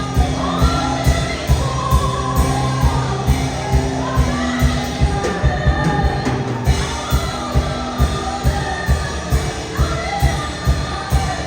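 Worship music: voices singing over a band with a steady beat.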